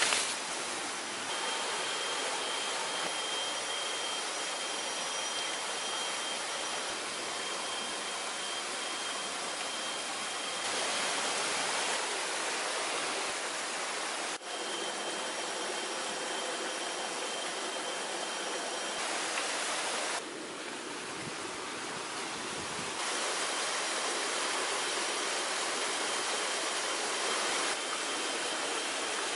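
Steady rushing of flowing water, an even hiss with a thin, steady high-pitched tone running through much of it. The level jumps up and down several times.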